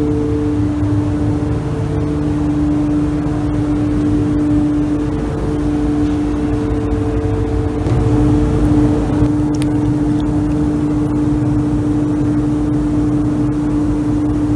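Steady machine hum with two held tones over a low rumble, unchanging throughout, with a couple of faint clicks about two-thirds of the way in.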